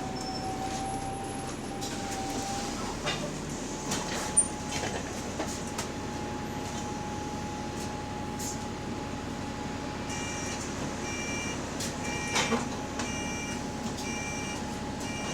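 Bus interior: engine noise under a steady high-pitched whine that shifts pitch slightly about three seconds in and dips at the end, with a few clunks. From about ten seconds in, the doors' warning beeper sounds repeatedly, about twice a second.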